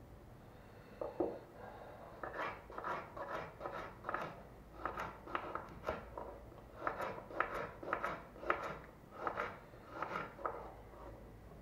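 Kitchen knife slicing a carrot into rounds on a wooden cutting board: a run of short knocks, two or three a second, as the blade goes through and hits the board. The chopping starts about a second in and pauses briefly midway.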